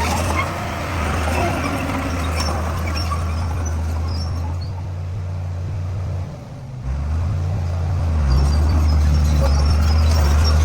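Bulldozer's diesel engine running steadily with a low hum, dipping briefly about six and a half seconds in, then picking up and running louder toward the end.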